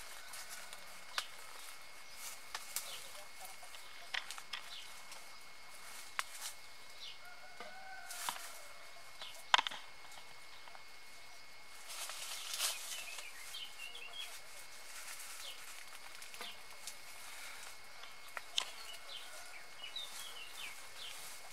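Dry bamboo leaves and twigs crackling in scattered sharp clicks as a body shifts on them, with one louder snap about halfway through. Birds chirp in short calls around them, and a faint steady high tone runs throughout.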